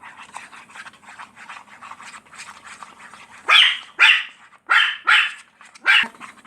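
A dog barks five times in quick succession, short and sharp, after about three seconds of quieter rapid ticking.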